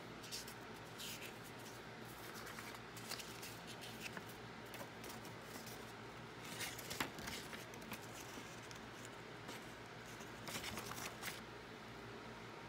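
Light rustling and scattered soft clicks from handling a new phone's paper leaflet and packaging, with one sharper click about seven seconds in, over a faint steady hum.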